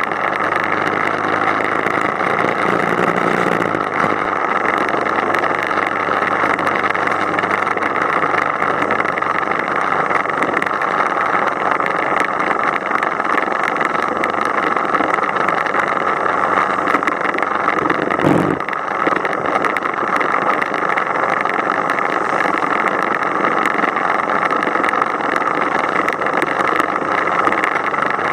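Motorcycle riding at speed: a steady rush of wind on the microphone and road noise over a low engine drone, with a brief thump about 18 seconds in.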